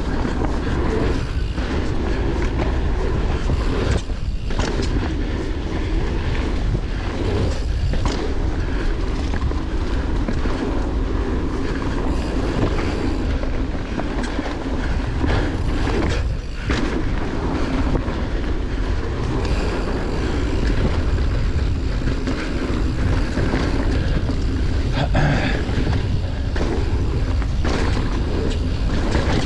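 Wind rumbling over the camera microphone as a Scott Genius full-suspension mountain bike rolls at speed down a dirt singletrack, with steady tyre noise over dirt and rock and occasional rattles from the bike.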